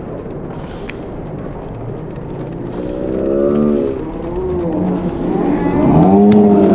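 Indoor arena crowd noise that builds into long, drawn-out shouts of spectators cheering a pole vaulter on as she goes up over the bar, louder toward the end.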